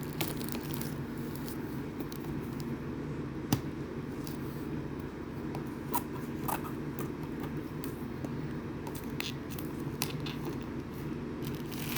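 Plastic wrapper being pulled off a packaged diary: scattered faint crackles and clicks, with one sharper click about three and a half seconds in, over a steady low hum.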